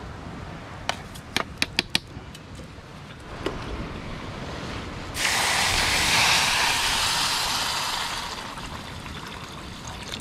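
A few sharp clicks, then a sudden loud rushing hiss that starts about five seconds in and fades away over some four seconds.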